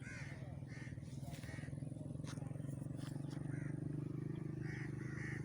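A steady low engine hum that grows a little louder about three seconds in, with short higher chirps and a few clicks over it.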